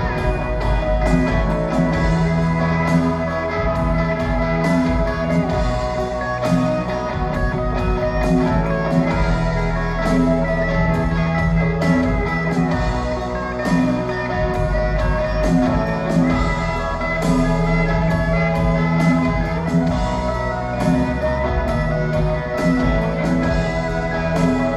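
Live rock band playing an instrumental passage with no singing: electric guitar, pedal steel guitar, bass, keyboard and drums, heard through the arena's PA.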